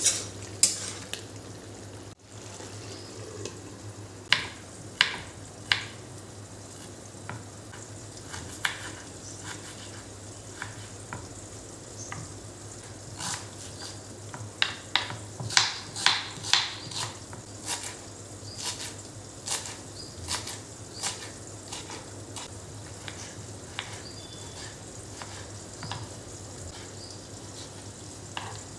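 Food sizzling and frying in a pan while a utensil stirs it, with sharp knocks and taps of the utensil against the pan, busiest in the middle of the stretch. There is a brief break about two seconds in.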